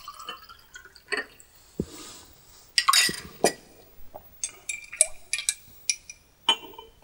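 Coffee poured from a glass into stemmed glass mugs, followed by a series of short, sharp clinks of glass and a metal spoon against glass.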